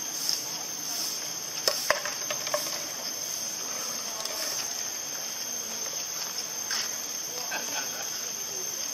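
Steady high-pitched insect drone, crickets or cicadas, running throughout, with a couple of sharp crackling clicks about two seconds in and another near the end.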